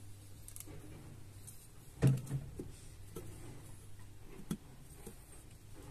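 A single loud knock about two seconds in, followed by a few lighter knocks and clicks, over a steady low hum.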